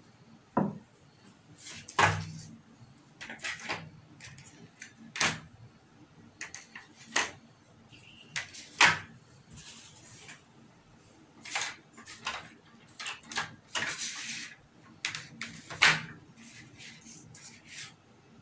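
Scattered sharp clicks and light knocks as LED backlight strips are handled and fitted inside an opened LED TV, with a brief rustle near the end.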